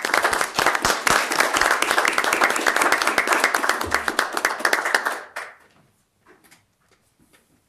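Applause from a small group of people clapping, which dies away about five seconds in, followed by a few faint shuffling sounds.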